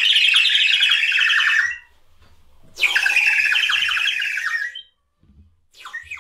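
Shrill, squawky notes blown on a small hand-held mouth instrument, in long blasts of about two seconds with short pauses between; a third blast starts near the end.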